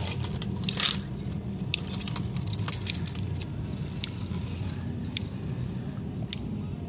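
Light metallic clicks and clinks of a chain and hooks as hands work at a big channel catfish's mouth, with one sharper click about a second in, over a steady low hum.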